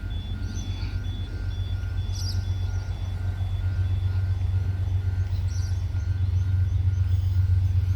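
Aurizon diesel locomotive 2844 rumbling as it approaches, growing steadily louder. Alongside it, an electronic warning beep repeats evenly about two to three times a second.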